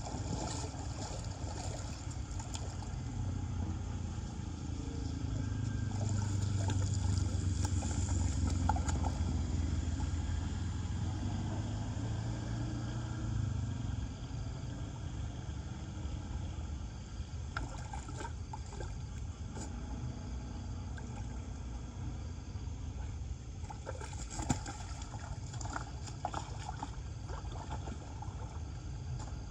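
Floodwater flowing and trickling around a street storm drain, under wind on the microphone. A low rumble swells and fades in the first half, and scattered light knocks come later.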